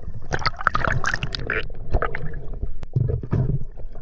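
Water gurgling and bubbling around an underwater camera, with irregular crackles and a low rumble. A single sharp click comes about three seconds in.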